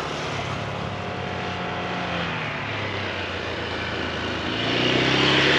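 Small 125 cc single-cylinder engines of a Honda motorcycle and scooter running on a track. The engine pitch drops about two seconds in, then rises as the sound grows louder near the end, as a bike comes closer.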